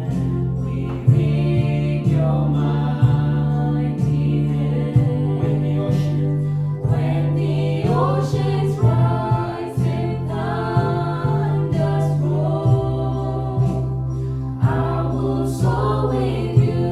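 Congregational worship song: voices singing together over a band with a steady bass line and beat.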